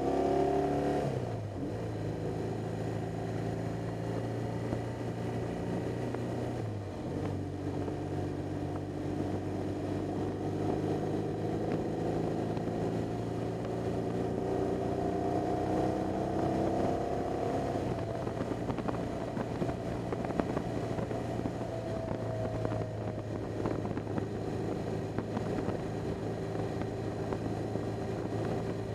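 BMW R 1200 GS boxer-twin engine running at road speed, heard from on the bike. The engine note dips briefly about a second in and again about seven seconds in, climbs under acceleration midway, then holds steady.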